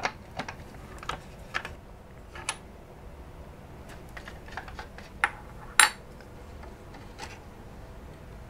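Scattered light clicks and taps of a screwdriver turning out screws and handling parts inside a laptop's case, the sharpest two about five and six seconds in.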